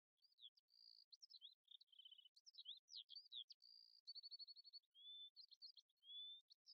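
A songbird singing faintly: a run of varied whistled phrases, with slurred rising and falling notes, steady whistles and quick trills of rapidly repeated notes.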